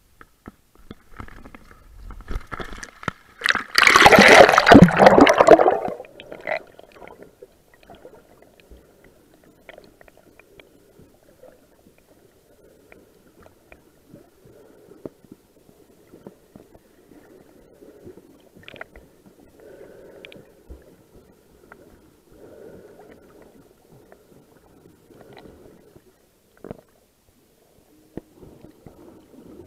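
A loud splash about four seconds in as a snorkeler and the camera go under the water. After it comes a faint, muffled underwater hush with occasional small clicks.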